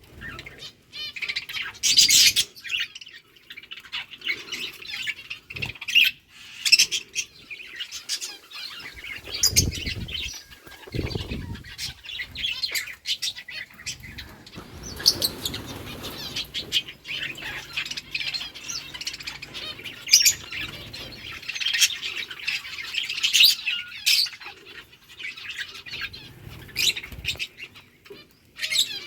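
Pet lovebirds chirping and squawking in many short, high calls, with a few wing flutters and low thumps about ten seconds in.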